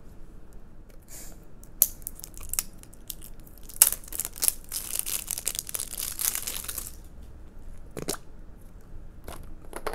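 Clear plastic wrapping being torn and peeled off a small plastic slime tub, crinkling and crackling for several seconds, then a couple of sharp clicks as the tub's lid is worked open.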